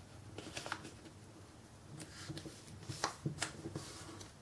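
A sheet of origami paper being folded and creased by hand: faint rustling with a few short, crisp paper clicks, the strongest two about three seconds in.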